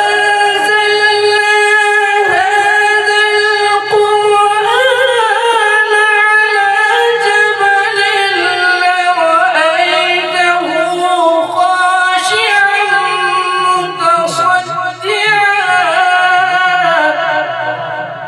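A man reciting the Quran in a melodic, drawn-out tilawat style through a microphone. It is one long unbroken vocal line of held, ornamented notes that wavers in pitch and fades out near the end.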